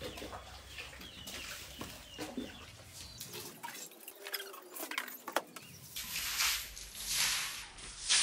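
Domestic chickens clucking, with short scattered calls and scratching clicks. From about six seconds in come several loud bursts of hissing noise.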